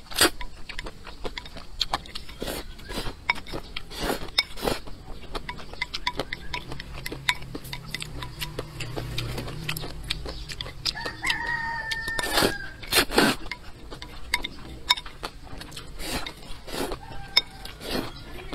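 A person slurping and chewing noodles, with a run of sharp smacks and slurps. A rooster crows once about eleven seconds in.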